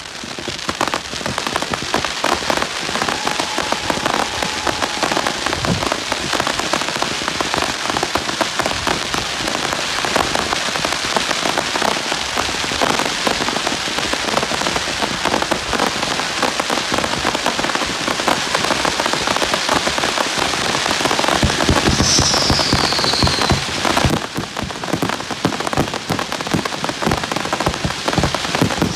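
Fireworks display going off in a dense, continuous crackle of countless small pops, like heavy rain. A descending whistle sounds about 22 seconds in, and the crackle briefly drops about 24 seconds in.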